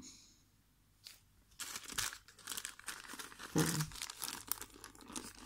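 Small clear plastic bag of metal charms crinkling as it is handled, starting about a second and a half in.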